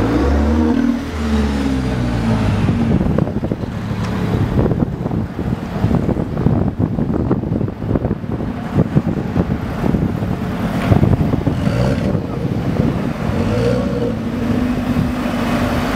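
Alfa Romeo 4C's 1.75-litre turbocharged four-cylinder engine pulling away at low revs, its exhaust note rising and falling in pitch. Through the middle stretch it is mostly buried under rustling handling and wind noise on the microphone, and it revs up again near the end.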